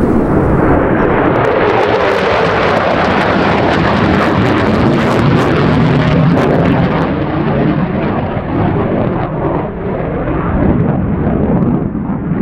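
F-15C fighter jet's twin Pratt & Whitney F100 turbofans in afterburner on a high-speed flyby: a loud, rough roar full of crackling. After about seven seconds the crackle and the highest sounds fade while the deep roar carries on as the jet climbs away.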